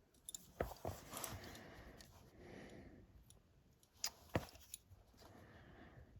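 Small jeweller's hand tools working a silver piece: a few sharp metallic clicks, two about half a second in and two about four seconds in, with soft scraping between.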